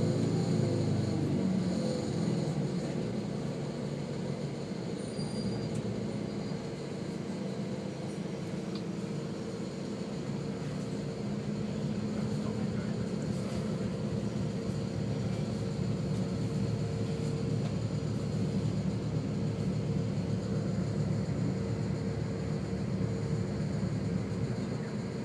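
Engine and road noise of a moving vehicle heard from inside its cab: a steady low drone that eases slightly a few seconds in and then builds again.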